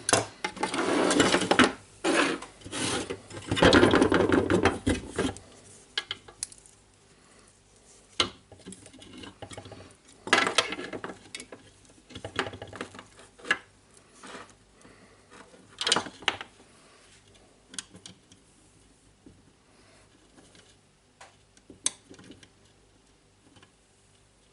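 Rubbing, knocking and clicking of jigsaw housing parts being handled on a workbench, dense for the first five seconds, then sparse separate clicks and short scrapes.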